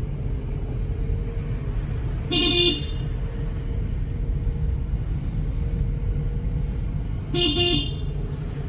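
Car engine and road noise heard inside a small Renault car while driving, with two short horn honks: one a couple of seconds in and another near the end.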